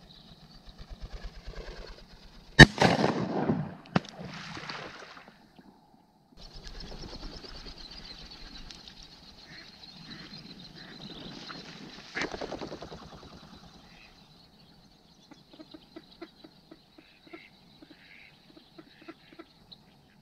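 A shotgun fires about two and a half seconds in, its report ringing out, with another sharp report about a second later and a third, quieter shot near the middle. Near the end comes a string of short quacks.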